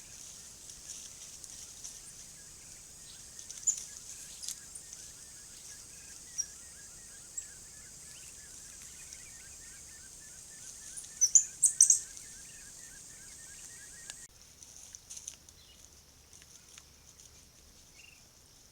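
Outdoor bush ambience: a steady high insect hiss with scattered bird chirps, the loudest a quick cluster of sharp high chirps about 11 to 12 seconds in. The background changes abruptly about 14 seconds in, and the hiss goes on at a lower level.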